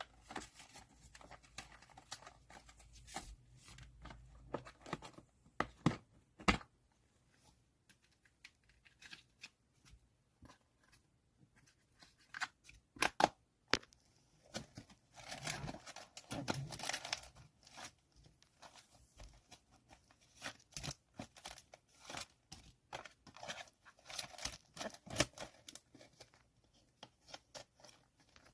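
Photocards being packed by hand: plastic sleeves and wrapping crinkle and tear, with scattered small clicks and taps. A longer stretch of rustling comes about fifteen seconds in.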